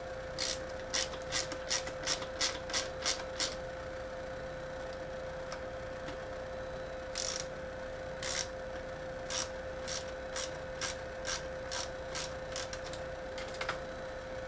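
Ratcheting screwdriver clicking as a screw is turned in. There is a quick run of about eight clicks, a pause of a few seconds, then a slower run of a dozen or so more. A steady hum sounds underneath.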